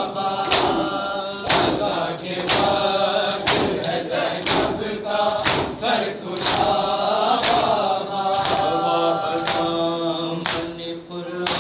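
Urdu noha, a Shia lament, chanted by a male lead and group of men into a microphone. A sharp chest-beating strike (matam) keeps time about once a second.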